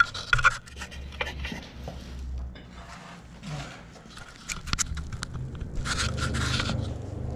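Handling noise: scraping and rubbing with a few sharp clicks, the longest rub near the end, over a steady low hum.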